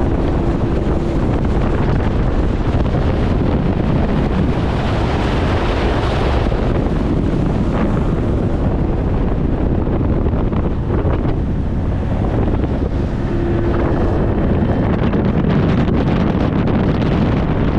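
Strong wind buffeting the microphone: a loud, steady rush, with a faint hum showing briefly at the start and again about three-quarters of the way through.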